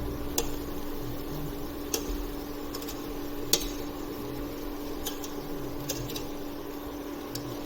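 A utensil knocks and scrapes against a cooking pot while star gooseberries and sugar are stirred. There are about half a dozen sharp, irregular clicks over a steady low hum.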